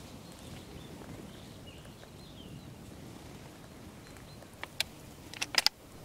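Quiet rural outdoor background with faint distant bird calls, then several sharp clicks and knocks close together near the end.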